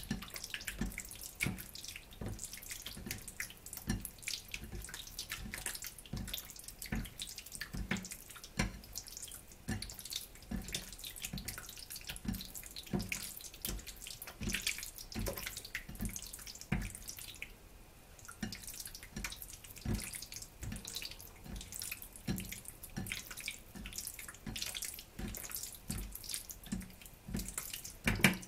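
Hand kneading chunks of pork in a bowl of thick marinade: a steady rhythm of wet squelches and sloshes, roughly one to two a second.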